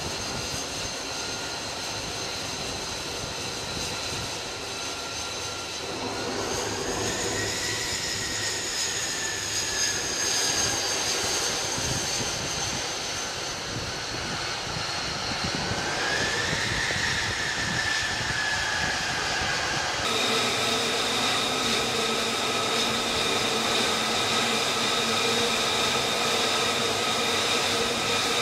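F-35C's F135 jet engine whining steadily at low power while the fighter taxis. The pitch rises twice as the engine spools up and then eases back.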